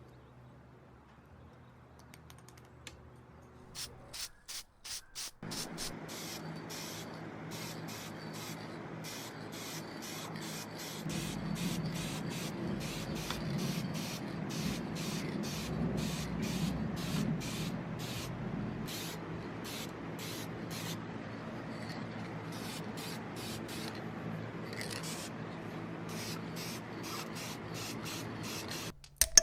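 Paint being sprayed onto a diecast model car body: a few short spurts, then a steady hiss with quick regular pulses that runs until it stops just before the end.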